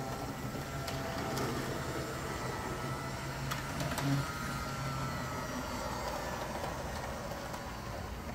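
Model electric locomotive (Roco Swiss Be 4/6, DC) running on the track: its small electric motor gives a steady whirring hum with a faint whine, with a few light clicks from the wheels on the rails. The hum fades after about five seconds.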